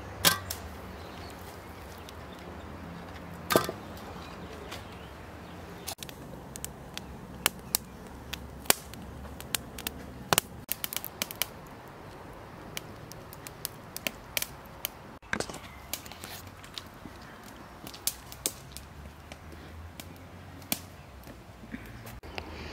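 Wood fire crackling: scattered sharp pops and cracks of differing loudness, coming irregularly over a low steady hum.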